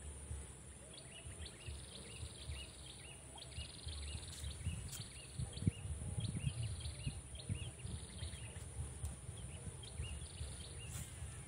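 Wind buffeting the microphone with a low rumble. Over it a bird repeats a short chirp about three times a second.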